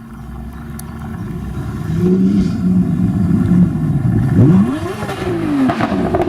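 Car engine, a low rumble at first that grows louder after about two seconds; from about four seconds in its pitch sweeps up and down several times as it revs and accelerates.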